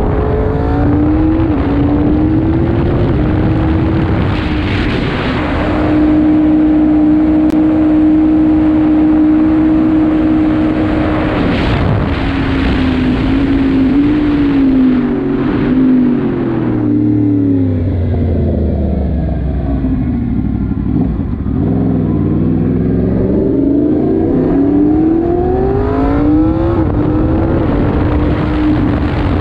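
Yamaha MT-10's crossplane inline-four pulling hard at speed, over steady wind rush on the microphone. Its pitch climbs at first and holds high, falls away over several seconds as the throttle is rolled off past the middle, then climbs again as the bike accelerates near the end.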